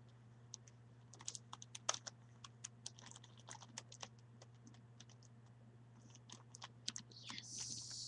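Plastic Rubik's Cube clicking as its layers are twisted by bare feet: an irregular run of sharp clicks, with a short rustling scrape near the end. A steady low hum runs underneath.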